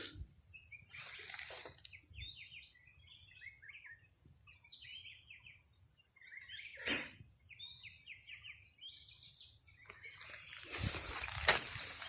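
Steady high insect drone, crickets or cicadas, with a bird calling over it in many short falling chirps. A sharp click about seven seconds in, and rustling steps through vegetation near the end.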